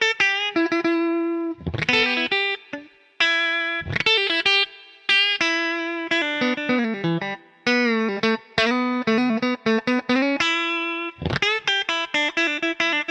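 Fender Stratocaster electric guitar played through an amp: a lead phrase of single notes with string bends and vibrato, with a few struck chords about 2 s, 4 s and 11 s in.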